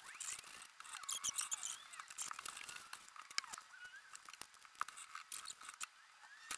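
Damp cloth wiping over a vinyl door panel: faint, irregular rubbing with small squeaks. Scattered light clicks and knocks come from things being handled and set down on the bench.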